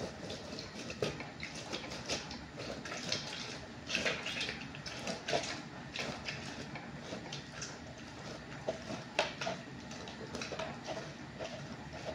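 Halved orange being twisted and pressed by hand on a manual citrus juicer, giving irregular squelching and scraping with small clicks as the juice is squeezed out.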